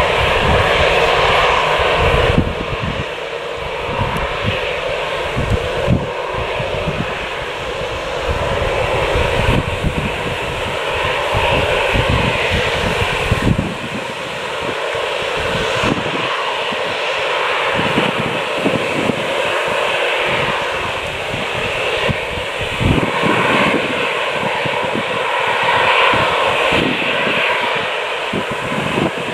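Jet airliner engines running loudly and steadily, an even noise with no break.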